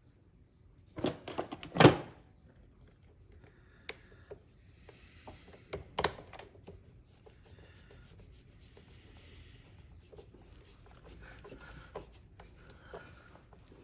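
Hand-tool work on wiring connections: small metal clicks and knocks with light rustling, the loudest a few sharp knocks about one to two seconds in and another about six seconds in, as terminal connections are tightened.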